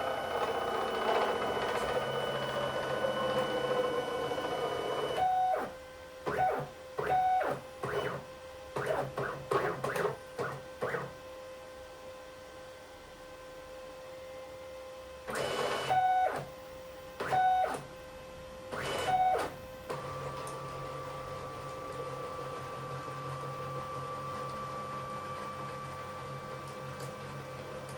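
Stepper motors of a home-built CNC milling machine driving its axes through test moves. For the first five seconds it runs steadily, its pitch slowly falling. Then come a string of short start-stop jogs, a quieter pause, three more short jogs, and a steady whine from about twenty seconds in.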